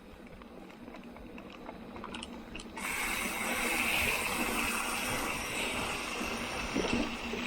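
Mountain bike rear freehub freewheeling: a few scattered clicks, then from about three seconds in a steady, high-pitched ratchet buzz as the wheel coasts.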